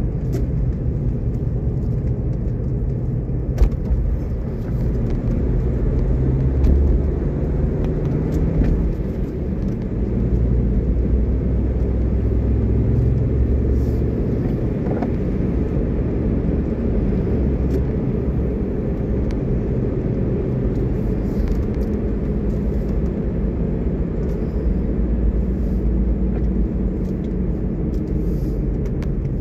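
Car driving along a paved road, heard from inside the cabin: a steady low rumble of engine and tyres.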